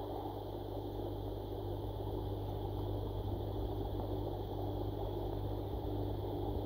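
Steady underwater ambience of a koi pond: a low hum with a rushing of moving water, picked up by a submerged camera.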